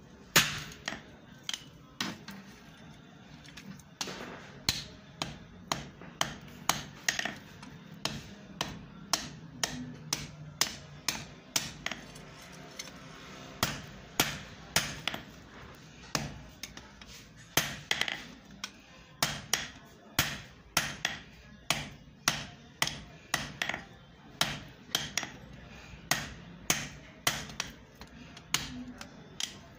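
Hand hammer striking a red-hot iron bar on a steel block anvil, blows in a steady rhythm of about two a second, with short pauses a couple of seconds in and about halfway through.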